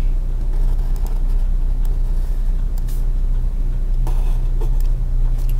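A steady low electrical hum runs throughout. Over it come a few faint, short scratches of a mechanical pencil drawing on paper along a plastic template.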